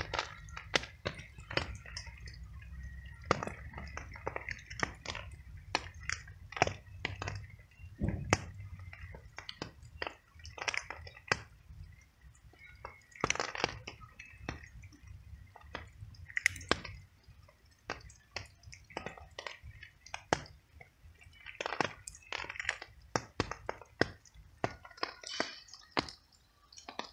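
Domestic cat chewing small treats, a run of irregular crisp crunches.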